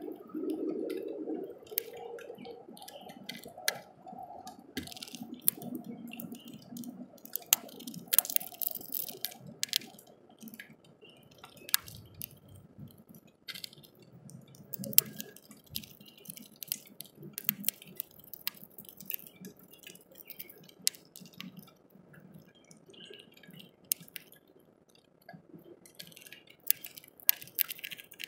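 Irregular sharp ticks and taps of raindrops dripping onto a clear plastic window bird feeder, some in quick clusters, over a soft low background murmur.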